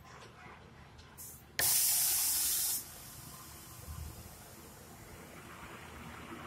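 Truck air brakes letting out a loud hiss of compressed air for about a second, just after a brief fainter hiss. Faint traffic noise follows, growing near the end as another truck approaches.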